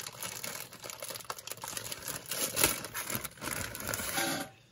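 Plastic packaging around a model kit's rubber tires crinkling and tearing as it is opened by hand, with irregular crackles and small clicks.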